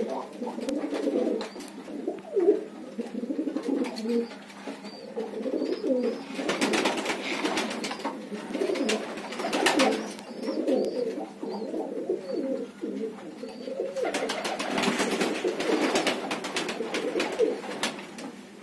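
Many pigeons cooing at once, their overlapping coos going on throughout. About a third of the way in and again near the end there are stretches of rustling, clicking noise among the flock.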